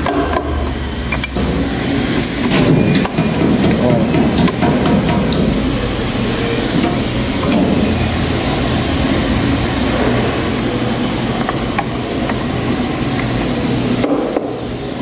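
Electric stirring mixer's paddle turning slowly through ground beef frying in a large aluminium pot, its motor humming steadily. A spoon scrapes and knocks against the pot at irregular moments as the meat lumps are broken up.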